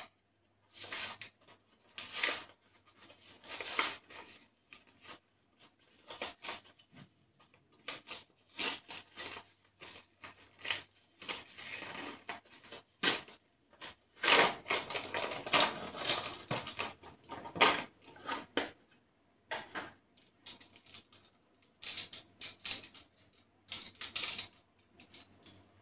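Plastic blister pack and its cardboard backing being crinkled, pulled and torn apart by hand to free a set of ballpoint pens, in irregular bursts of crackling and tearing, busiest about halfway through; sparser, shorter sounds near the end as the pens are handled.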